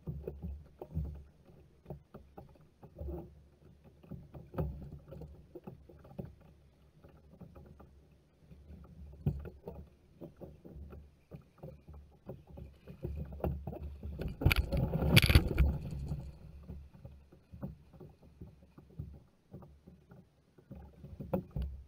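Sounds of a fishing kayak on open water: irregular knocks and bumps on the hull with water noise. A louder, rushing stretch comes about fourteen to sixteen seconds in.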